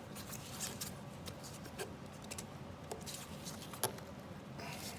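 Light clicks, taps and scrapes of a lawn mower's metal carburetor float bowl being handled and fitted back onto the carburetor by hand, with one sharper click near the end.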